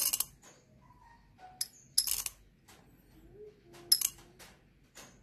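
Roasted Gayo Wine coffee beans dropped by hand into a small glass on a kitchen scale, clicking and clinking against the glass in several short clatters with pauses between.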